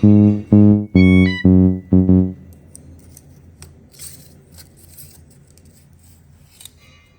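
Background music of plucked guitar and bass notes in a steady rhythm, stopping about two seconds in; after that only faint scattered clicks.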